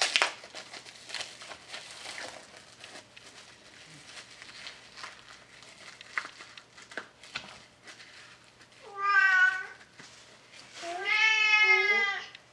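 A hungry domestic cat meowing twice, a short meow about nine seconds in and a longer, drawn-out one near the end. Before that only faint clicks and rustles of hands handling food on a counter.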